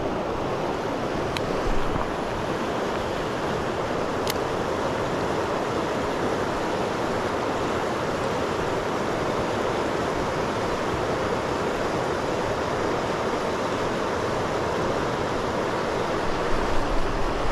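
Fast river rapids rushing steadily over stones, with two faint sharp clicks, the first about a second and a half in and the second about four seconds in.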